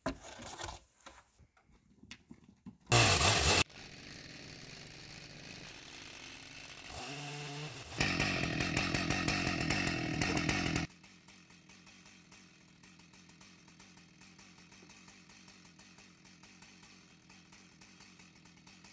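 Chainsaw running, with a short loud burst about three seconds in and a loud stretch of about three seconds midway. Between and after these there is only a much fainter steady hum.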